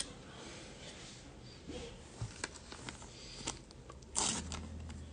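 Baseball trading cards being handled: soft rustling with scattered small clicks, and a short, louder rustle about four seconds in.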